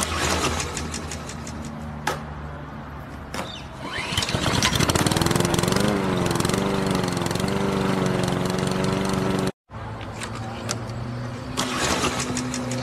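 Petrol lawn mower engine being started: it cranks and sputters, catches about four seconds in with a rising pitch, and runs with a wavering pitch. The sound breaks off abruptly near the end, then the same start-up begins again.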